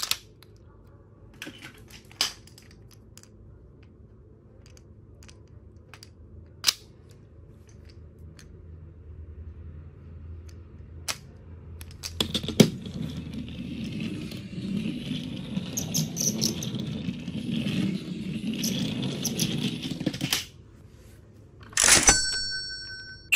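Plastic toy blocks clicking as they are set onto a magnetic toy train, a few separate clicks. About halfway in, a steady rattling noise starts, runs about eight seconds and stops suddenly, followed by a short loud sound near the end.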